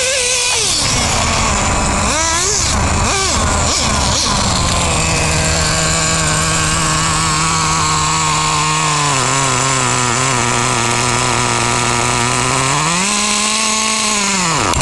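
Traxxas T-Maxx RC truck's TRX 3.3 two-stroke nitro engine: a few quick revs with the pitch swinging up and down, then idling steadily. The idle drops lower about nine seconds in, the engine revs up briefly near the end, then dies out.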